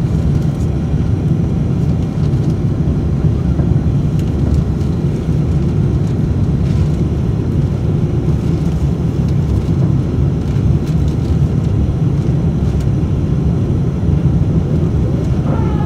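Steady cabin noise of an Airbus A350-900 climbing after takeoff: its Rolls-Royce Trent XWB engines and the airflow heard from inside at a window seat, a deep, even rumble.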